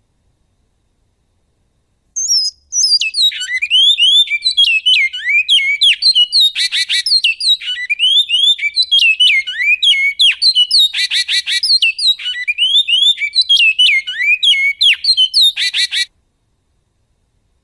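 Great-billed seed-finch (bicudo) singing in the goiano song style: a fast run of clear whistled notes sliding up and down, broken by a few harsh buzzing notes. The song starts about two seconds in and stops abruptly near the end.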